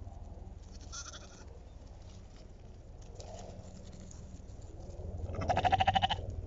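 A lamb bleating: one high, quavering bleat about five seconds in, with a fainter short call about a second in.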